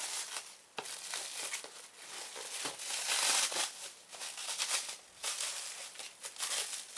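Plastic cling wrap being crinkled and pulled off a package by hand, in uneven rustling spurts with a few sharp crackles.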